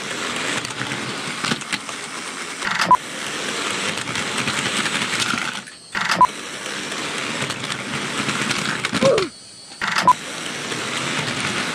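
Model trains running on a layout's track with a steady clattering rattle, broken by three sharp knocks about three seconds apart. The rattle cuts out briefly twice.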